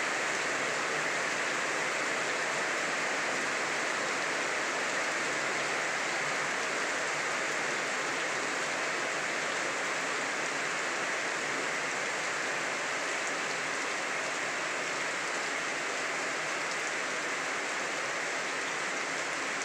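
Heavy rain falling steadily, splashing on wet paving and puddles.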